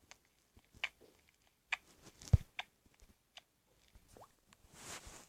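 Slime being squeezed and poked: scattered small wet clicks and pops, with one louder thump a little over two seconds in and a brief soft hiss near the end.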